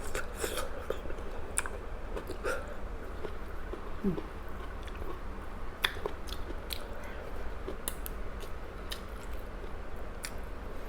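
Close-up eating sounds: chewing and biting of boiled broccoli and grilled chicken, with scattered sharp wet clicks of the mouth and utensils over a low steady hum.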